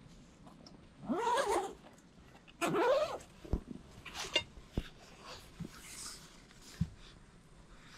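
Zipper of a soft gun case pulled open in two long strokes about a second and a half apart, each sliding up in pitch, followed by a few light knocks and rustling as the shotgun is lifted out of the case.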